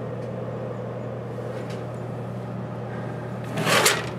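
Whitfield Advantage/Profile 30 pellet stove running with a steady blower hum. Near the end comes a brief, louder scraping rustle.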